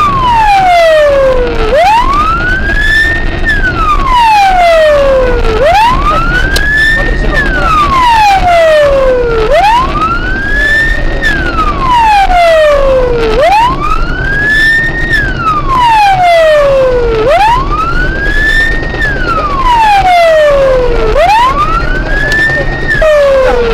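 Police car siren wailing in a slow cycle, heard from inside the pursuing patrol car: each wail rises quickly and falls back more slowly, about every four seconds. Steady engine and road noise runs underneath.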